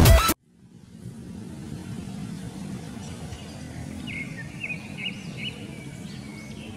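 A loud electronic music sting cuts off abruptly at the very start. It gives way to forest ambience: a steady low background rumble, with a bird calling in short repeated chirps from about three seconds in.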